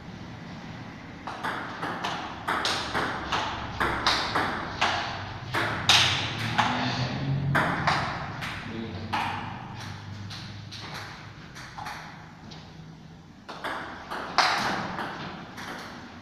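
Table tennis ball clicking back and forth off the paddles and bouncing on a Stiga table in a long rally. The hits come two to three a second from about a second in and thin out around twelve seconds. A few sharper knocks follow near the end.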